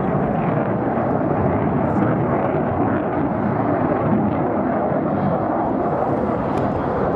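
RAF Eurofighter Typhoon's twin Eurojet EJ200 turbofans, loud and steady jet noise as the fighter flies its display overhead.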